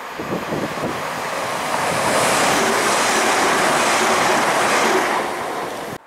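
TransPennine Express Class 185 diesel multiple unit passing close at speed: a rush of wheel and air noise that builds and holds steady as the carriages go by, then cuts off suddenly near the end.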